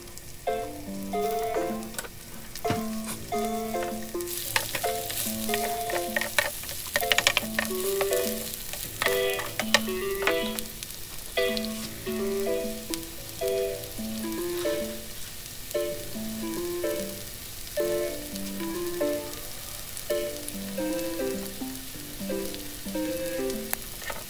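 Chopped red onion sizzling in hot oil in a grill pan, the hiss growing stronger about four seconds in, with a run of sharp clicks and scrapes as it is stirred. Background music of a simple repeating melody plays throughout.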